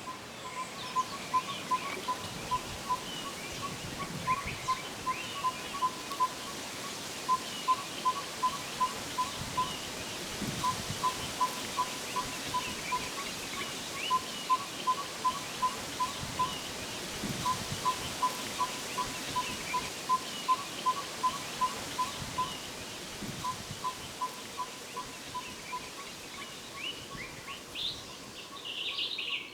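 A bird repeating one short, clear, mid-pitched note about three to four times a second, in runs of six to eight notes that come back every two to three seconds. Other birds chirp faintly behind it, louder near the end.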